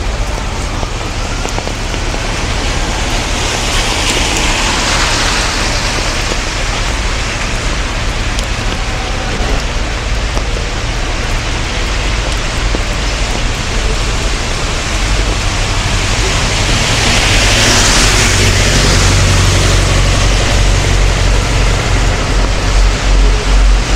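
Rain and rush-hour traffic on a wet city street: a steady hiss of rain and tyres on wet road, swelling twice as vehicles pass, about four seconds in and again about eighteen seconds in, over a low engine rumble that grows louder toward the end.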